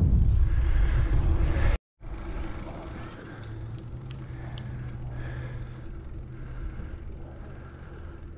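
Wind buffeting the action camera's microphone while cycling: a loud, even rush that cuts off abruptly just under two seconds in. After a moment of silence, quieter road noise follows, with a faint steady low hum and a few light clicks.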